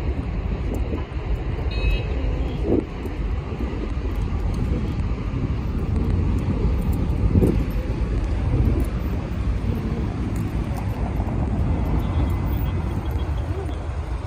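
Road traffic at a busy city intersection: a steady rumble of cars idling and passing.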